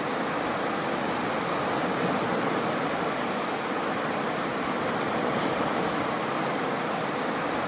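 Small ocean waves washing steadily onto a sandy beach, a constant rushing wash with no single loud break.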